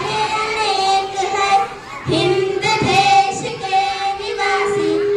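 Girls singing a song into microphones through a loudspeaker system, the melody bending smoothly between notes, with a long held note near the end.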